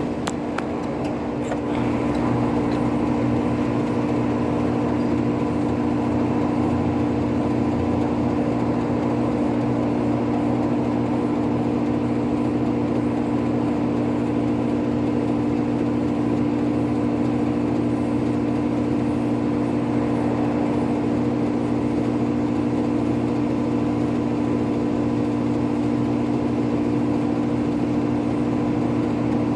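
Central air conditioner condensing unit running steadily, its compressor and condenser fan giving a constant hum with a few steady tones. It gets slightly louder about two seconds in, then holds unchanged.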